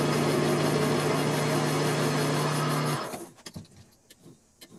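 Grizzly G4000 metal lathe running with a steady hum as it spins an aluminum pulley in the chuck, then switched off about three seconds in, its sound dying away quickly. A few light clicks and knocks follow.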